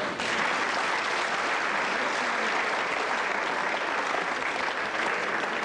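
Audience applauding at the end of a dance. The clapping starts abruptly and holds steady.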